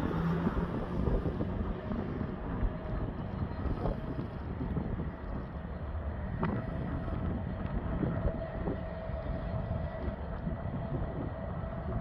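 Class 66 diesel locomotive's two-stroke V12 engine running with a steady low rumble as it hauls a loaded freight train slowly round a curve. A faint thin steady tone joins about halfway through, with a couple of sharp clicks.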